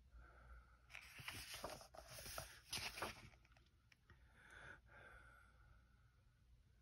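A coloring book page being turned: a dry paper rustle lasting about two seconds, followed by a softer brush of paper about five seconds in.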